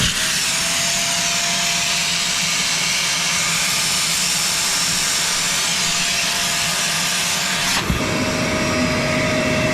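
Milwaukee M18 Fuel 6-gallon cordless wet/dry vacuum running steadily: a loud airflow rush with a steady motor whine. About eight seconds in there is a brief click and the tone shifts as the intake load changes.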